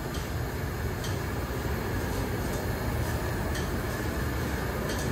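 Steady roar of gas burner flames firing under large aluminium biryani pots, with a few faint light clicks on top.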